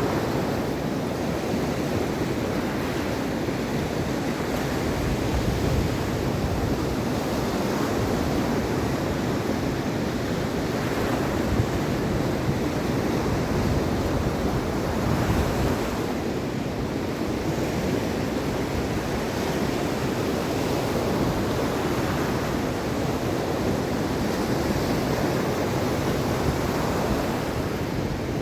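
Mediterranean Sea waves breaking and washing onto the shore in a continuous rush, swelling and easing every few seconds, with some wind on the microphone.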